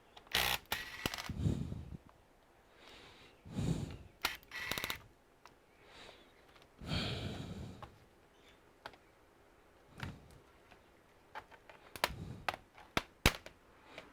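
Clicks, knocks and rustles of laptop parts and tools being handled during disassembly, with a quick run of sharp clicks near the end.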